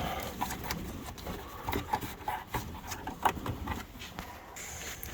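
Scattered light clicks, knocks and rubbing: handling noise from someone moving around and working on a vehicle.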